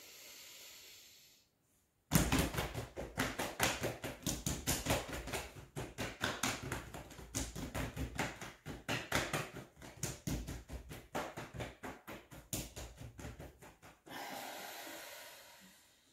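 A breath drawn in through the nose, then hands rapidly tapping on the chest in a quick, uneven patter of many taps a second for about twelve seconds, ending in a long breath out through the mouth.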